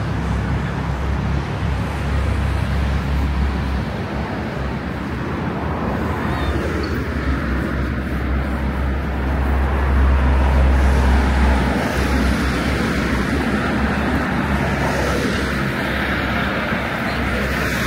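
Road traffic noise: a steady rumble of passing cars, swelling for a couple of seconds about ten seconds in.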